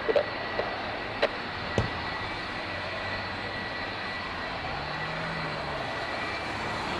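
Jet engines of an easyJet Airbus airliner taxiing on the runway: a steady rush with a thin, constant high whine. Two faint clicks come in the first two seconds.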